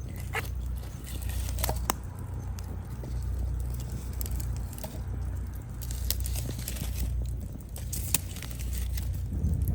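Wood fire crackling, with scattered sharp pops about two seconds in and again near the end, over a low, steady rumble that swells and eases.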